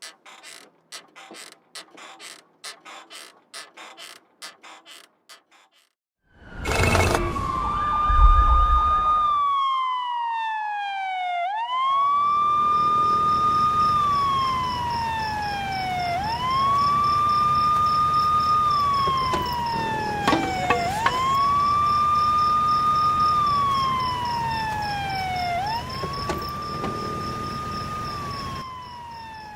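Rapid ticking for about six seconds, then a loud burst of noise. After that a siren wails in slow cycles: each rises quickly, holds, then slides down, repeating about every five seconds over a low rumble and a steady high tone.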